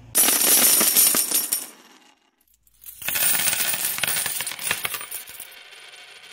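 Intro sound effect of bright metallic jingling and crackling in two bursts. The first lasts about two seconds from the start. After a short silent gap, the second starts about three seconds in and fades out.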